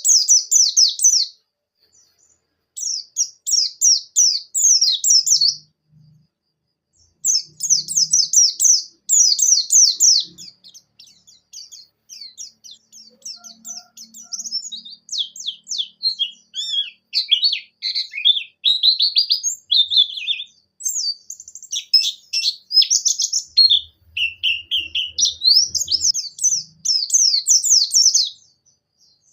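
White-eye (pleci) in full song: a rapid, high-pitched twittering song of fast descending notes, delivered in phrases of a few seconds with short pauses between them.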